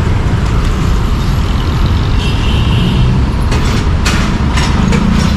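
Busy city road traffic: a steady heavy rumble of passing vehicles, with a brief high squeal a little over two seconds in and a few short sharp noises between about three and a half and five seconds in.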